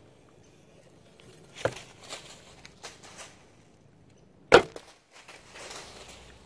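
Two sharp knocks, a weaker one early and a much louder one about four and a half seconds in, with light rustling between them.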